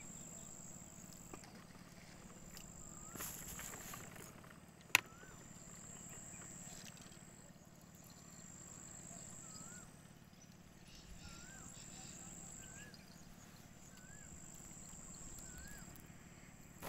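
Faint outdoor ambience: a steady high-pitched insect buzz in long stretches, with short whistled bird notes that rise and fall every second or two. A single sharp click about five seconds in.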